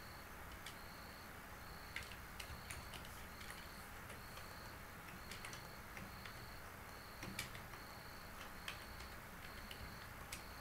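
Computer keyboard typing in quiet, irregular clicks, a few of them sharper than the rest. Behind it, a faint high chirp repeats evenly, a little less than twice a second.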